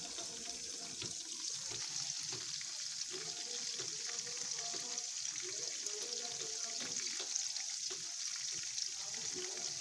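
Diced tofu deep-frying in hot oil in a wok: a steady sizzle with fine crackles.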